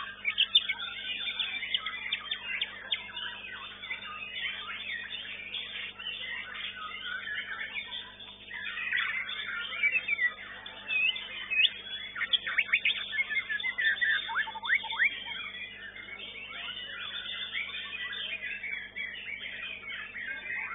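Many caged white-rumped shamas (murai batu) singing at once in competition, a dense overlapping tangle of whistles, quick chirps and sliding notes, busiest in the middle stretch.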